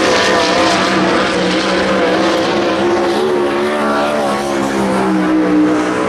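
Race car engines running continuously, several at once, their pitch wavering up and down as they are revved.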